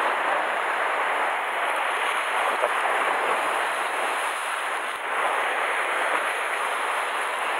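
Sea surf washing and breaking against a rocky shore, a steady rushing of water.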